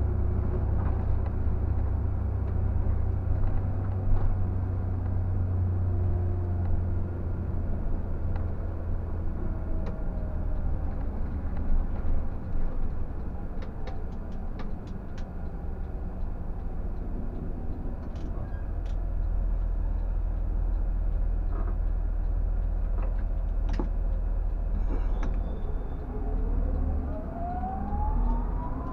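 Scania K124 360 coach's rear-mounted 12-litre straight-six diesel running on the move, heard from the driver's cab as a steady deep rumble mixed with road noise. A few light ticks and rattles come through about halfway. A whine rises in pitch near the end.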